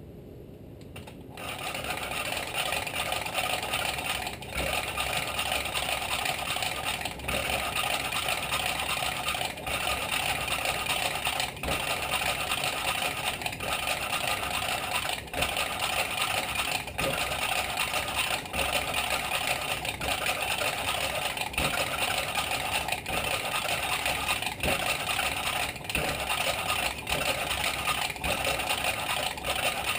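A hand-cranked valve lapping tool turns a Tecumseh HSK70 valve against its seat, giving a steady scratchy grinding of valve on seat through lapping compound, mixed with the whir of the tool's gearing. It starts about a second in and breaks off briefly every couple of seconds. This is the seat being ground to an even mating surface.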